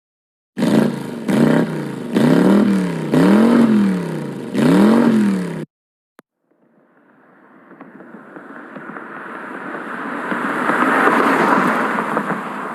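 A car engine revved in about five quick blips, each rising and falling in pitch, stopping abruptly near the middle. Then the rushing noise of a car approaching fades in, with no clear engine note, and swells to its loudest near the end.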